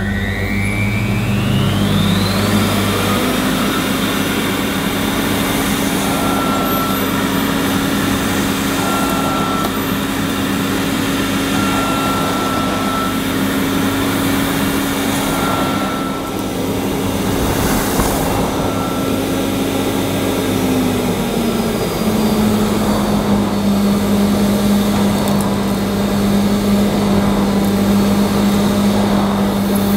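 Hoover Sensotronic 1000 cylinder vacuum cleaner's motor spinning up with a rising whine just after switch-on, then running steadily while its floor nozzle is pushed over thick carpet. Its pitch steps down a little about 21 seconds in.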